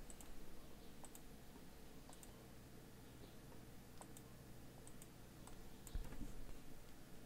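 Faint computer mouse clicks, several at irregular intervals.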